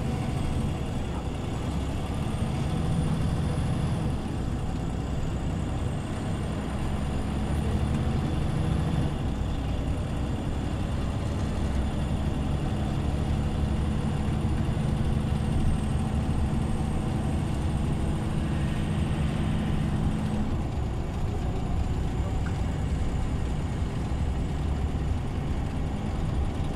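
Scania OmniLink CL94UA city bus running on the move, its engine drone steady and loud. The engine note changes twice, about nine and twenty seconds in. A thin high whine rises twice early on, holds, then drops at the second change.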